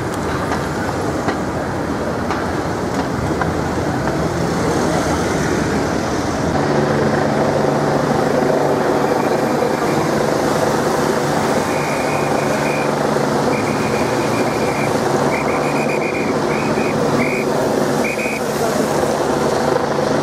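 Motorcade cars and escort vehicles passing on a wet road: steady traffic and tyre hiss, with a steady low engine hum joining about six seconds in. A string of short high beeps sounds from about the middle of the stretch.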